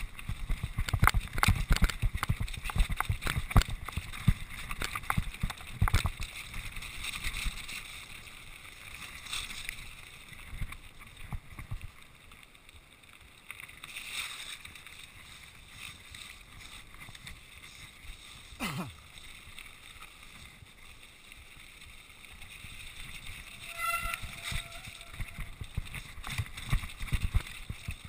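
Mountain bike rattling and clattering over loose rock on a downhill track, with wind on the microphone. The knocks come thick at first, thin out through the middle on a smoother stretch, and pick up again near the end.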